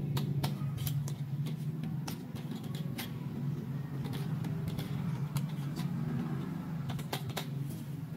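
Small pink plastic toy doll stroller being handled and put together, with many light plastic clicks and taps as its frame and wheels are worked, over a steady low hum.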